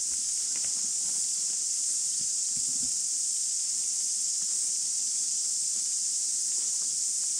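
A steady, high-pitched hiss that does not change, with a couple of soft low thuds about two and a half seconds in.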